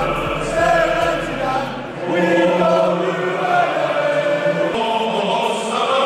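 Football crowd singing a chant together in a stadium, many voices with long held notes.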